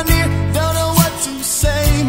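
Pop ballad music: a gliding melody over a steady bass and beat.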